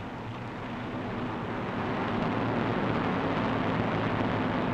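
Steady drone of bomber aircraft engines on an old newsreel soundtrack, growing louder over the first two seconds and then holding.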